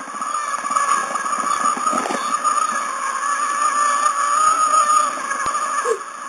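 Duplo toy train's small electric motor running with a steady, slightly wavering whine, over a rattle of plastic wheels on plastic track. A sharp click comes about five and a half seconds in.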